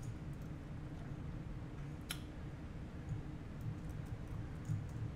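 A few scattered computer keyboard keystrokes, sharp isolated clicks, over a steady low hum.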